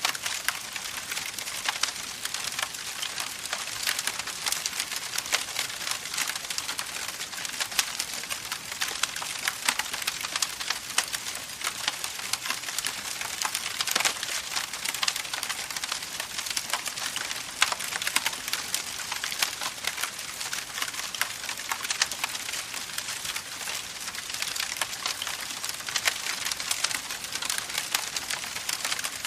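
Campfire of burning wood crackling steadily: a dense run of small crackles with occasional sharper pops.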